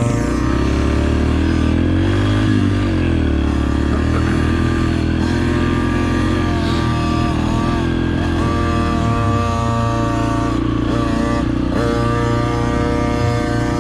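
Dirt bike engine running on a motocross track, its pitch rising and falling as the throttle is opened and closed, with several quick dips and climbs in pitch.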